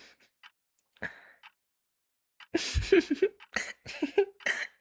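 A woman's breathy laughter in short bursts, starting about halfway through, after a few faint mouth clicks.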